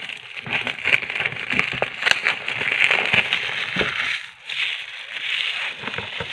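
Plastic and cardboard packaging of a curling iron box crinkling and crackling as it is opened and the contents are pulled out, with many sharp clicks and a brief lull a little after the middle.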